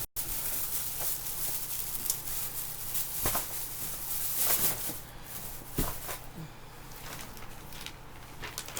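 Close-up eating sounds: chewing and mouth smacks, with scattered short clicks.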